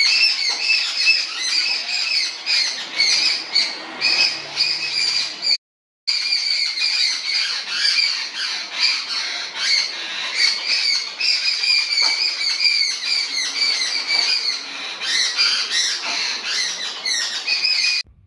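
A flock of jungle babblers giving harsh, rapidly repeated squawking calls, many birds at once: mobbing alarm calls aimed at an injured juvenile barn owl. The calls cut out briefly about five and a half seconds in, then carry on.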